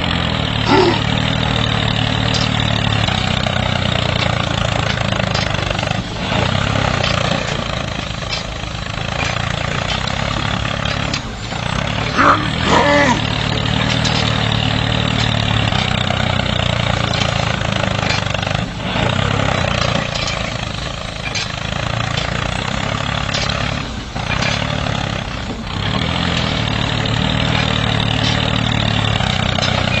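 Tractor engine running steadily, with a brief louder sound about twelve seconds in.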